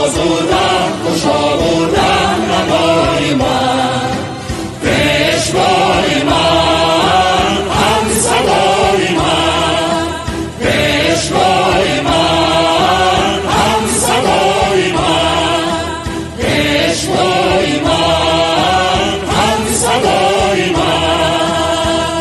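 Music: a choir singing in repeated phrases of a few seconds each over instrumental backing.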